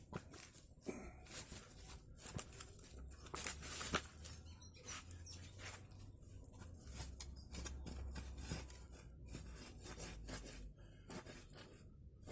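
Irregular crackling and rustling as a sharpened branch is pushed into the ground, with a low rumble through the middle.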